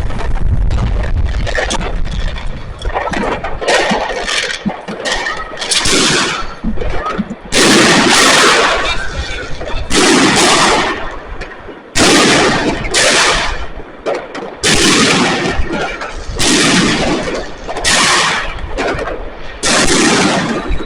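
Fireworks going off: sharp bangs and crackling bursts follow one another, denser and more jumbled at first, then loud separate blasts about every one to two seconds, each fading out over a moment.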